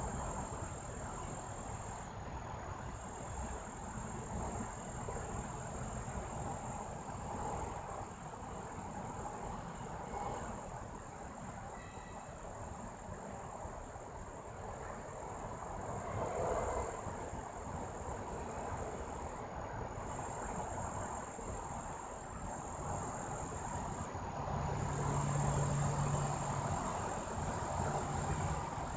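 2001 Goodman central air conditioner running steadily, its fan and compressor making an even rushing hum. A constant high-pitched buzz sits over it, and a low hum grows louder about 24 seconds in.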